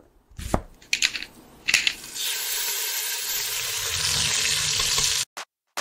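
Intro sound effects: three short swishes, then a steady hiss that builds slowly for about three seconds and cuts off abruptly.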